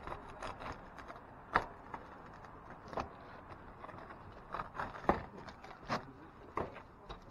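Hand snips cutting notches into an asphalt roof shingle: about six sharp crunching cuts spread over several seconds, the loudest about a second and a half in.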